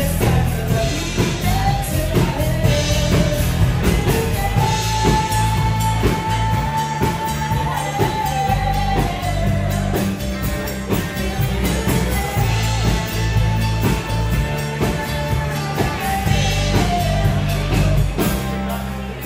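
Rock-and-roll band music: a singer holding long notes over drums, bass and guitar.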